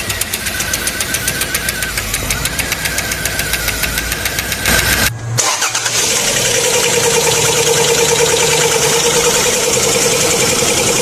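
Car engine running with a fast, even ticking for about five seconds. After a brief cut it runs on louder, with a steady whine over the engine note.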